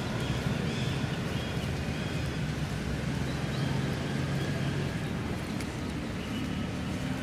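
Outdoor background noise with a steady low hum that rises slightly in pitch past the middle, and a few faint high chirps.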